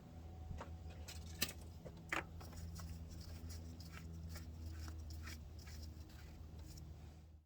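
Faint steady low hum with a few light clicks and taps scattered through it.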